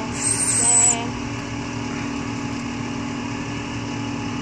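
Rollback tow truck's engine and winch running steadily as the car is pulled up the tilted bed. For about the first second a louder high hiss with a wavering squeal sits on top of it.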